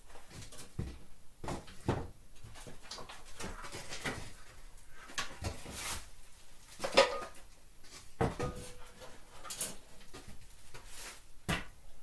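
Intermittent knocks, clinks and scraping from hand work on a car trailer in a small room, with a sharp clank about seven seconds in and another hit a second later that rings briefly.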